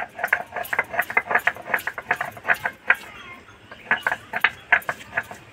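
Stone roller (nora) knocking and crushing peeled garlic cloves on a stone grinding slab (shil). Quick irregular knocks come several a second, with a short pause about three seconds in.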